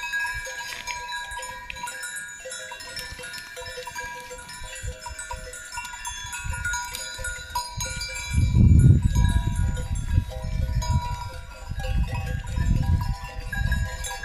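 Several cowbells on grazing cows clanking and ringing at irregular moments, their tones overlapping. From about eight seconds in, a low rumbling noise swells up under the bells and is the loudest thing heard.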